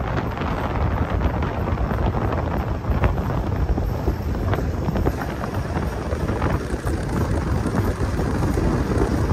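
A four-wheel-drive vehicle driving along: a steady rumble of engine and tyres with wind buffeting the microphone, and a few light knocks and rattles.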